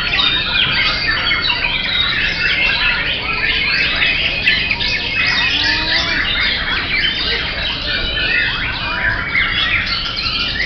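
Many caged white-rumped shamas (murai batu) singing at once: a dense, unbroken chorus of overlapping whistles, trills and chatter.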